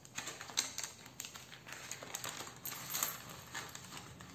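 Clear plastic binder envelope crinkling as euro banknotes and coins are slipped inside by hand, with scattered light clicks and rustles.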